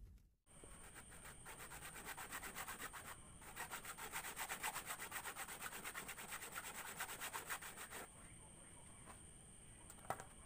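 Sandpaper rubbed quickly back and forth on wood, about five faint strokes a second, with a short break about three seconds in and stopping about eight seconds in. A thin steady high whine runs alongside, and a small click comes near the end.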